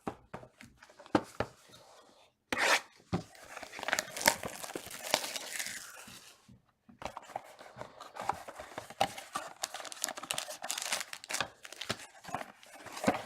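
Plastic wrapping being torn and crinkled off a trading card box. A few clicks and taps of handling come first, then two long stretches of crackly tearing with a short pause between them.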